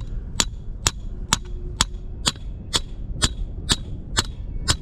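Hammer striking a bank rod holder to drive it into the ground, a steady series of sharp blows about two a second, each with a short metallic ring.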